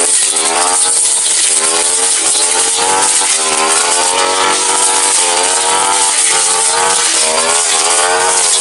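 Tasto TK 328G two-stroke brush cutter running at high throttle while cutting through brush, its engine pitch rising and falling continually as the load changes.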